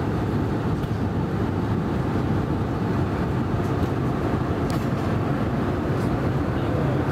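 Steady cabin noise of an Airbus A320 in flight: an even, low rumble of the engines and airflow heard from inside the passenger cabin, with a few faint clicks.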